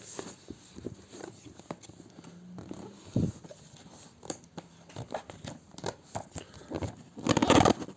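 Hands working at a graphics card's cardboard and plastic packaging: scattered light taps and clicks, with a louder rustling scrape near the end.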